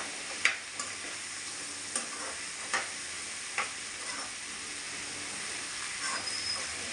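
Drumstick pieces frying in oil in a kadai, sizzling steadily, while a spatula stirs them and knocks sharply against the pan several times in the first few seconds, the loudest about half a second in.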